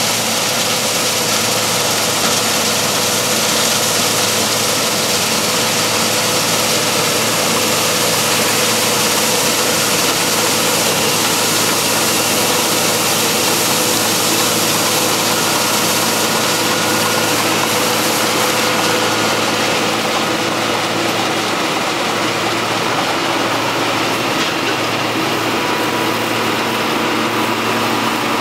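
Farm machinery's diesel engine running steadily at a constant speed, with a loud rushing hiss above it that eases about two-thirds of the way through.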